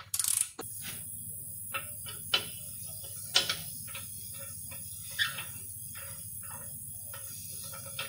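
Hand tools clicking and knocking against metal exhaust parts under a car, in scattered irregular taps, two of them sharper about two and a half and three and a half seconds in. A brief burst of noise comes right at the start, and a steady low hum and faint high whine run underneath.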